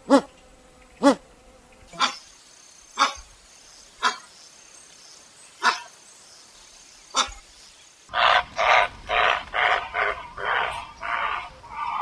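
Rufescent tiger heron calling: short barking calls about once a second, then, from about eight seconds in, a faster run of rougher notes, about two a second.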